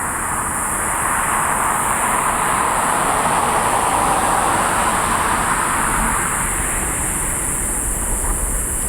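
Boeing 747-400 jet engines heard from the ground as the airliner climbs away after takeoff: a steady broad roar that swells over the first few seconds, then slowly eases.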